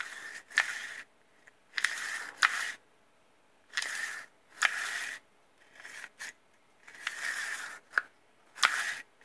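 Recoil pull starter of a Losi 5T's small two-stroke engine, its cord pulled out and let rewind over and over: a rasping rush of cord through the housing with a sharp click in each, about every second or two. The clicks come from the repaired starter pawl springing out to engage.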